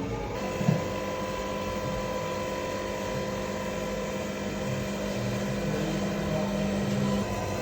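Small electric motor of a coil-winding machine for fused clapton vape coils, running with a steady hum, with a single click shortly after it starts.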